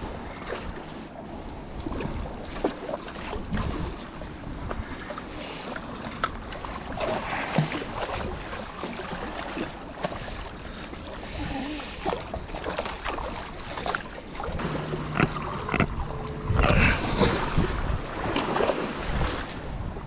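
Wind buffeting the microphone over water lapping against jetty rocks. A hooked crevalle jack thrashes and splashes at the surface, with louder surges now and then and scattered knocks and clicks.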